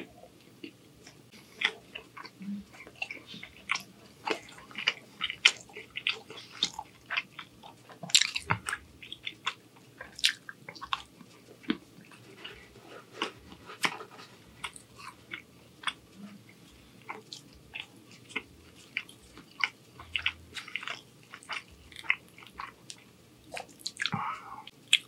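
Close-miked chewing of crusty bread, with many short, sharp wet mouth clicks and crunches coming several times a second.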